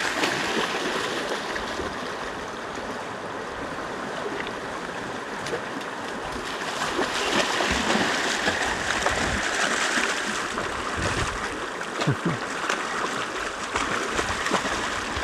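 Water splashing and sloshing as a dog wades and plays in it, louder for a few seconds in the middle.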